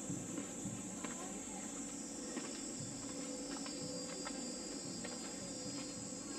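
A steady high-pitched insect drone, with scattered soft clicks and a low background rumble.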